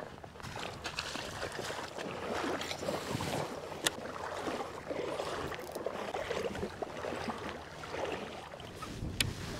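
Water sloshing and swishing in uneven surges around wader-clad legs wading through shallow water, with two sharp clicks, one about four seconds in and one near the end.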